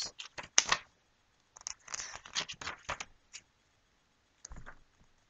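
Pages of a paper book being flipped, a run of short crisp rustles, with a low thump near the end.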